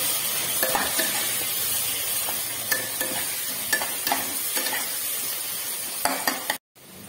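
Chopped onions sizzling in hot oil in a nonstick pot, stirred with a metal spatula that scrapes and taps against the pan now and then. The sizzle eases slightly, and the sound cuts out briefly near the end.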